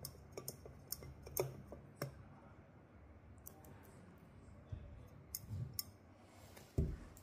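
Faint small clicks and taps of a drinking glass and a plastic bottle of rose syrup being handled while the syrup is drizzled round the inside of the glass, with a dull knock near the end.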